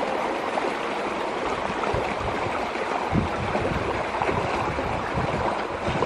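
Fast, swollen stream water rushing and churning through a stone culvert in a steady rush.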